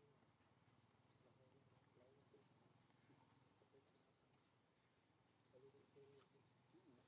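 Near silence: faint outdoor background with a steady high-pitched insect drone and a short rising chirp repeating about once a second.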